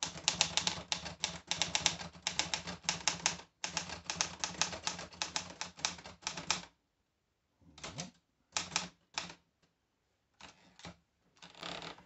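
Olivetti Lettera 33 portable manual typewriter being typed on: a fast, dense run of typebar strikes for about six and a half seconds, then a pause and a few scattered strikes. Near the end comes a short ratcheting burst as the platen knob is turned to roll the paper up.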